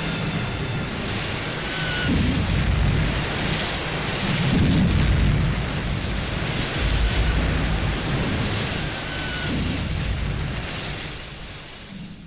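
Battle sound effects of artillery fire: a continuous rumble with deep explosion booms swelling every two to three seconds, fading out near the end.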